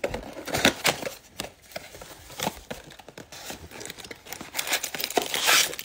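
Hands opening a cardboard Bowman baseball-card box: cardboard flaps scraping and tearing, with scattered sharp taps and clicks, then a louder rustle near the end as the foil-wrapped packs are pulled out.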